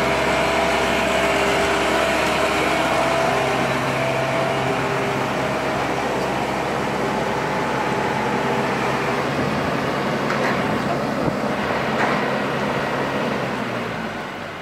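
Wise mobile boat hoist (travel lift) running as it raises a wooden cruiser in its slings: a steady engine-and-hydraulic drone with a couple of light clicks, easing off near the end.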